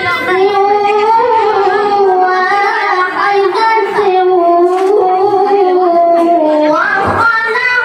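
A boy qari reciting the Quran in melodic tilawah style into a microphone, holding one long ornamented phrase on a wavering note. About seven seconds in the phrase breaks off and a new phrase begins on a higher pitch.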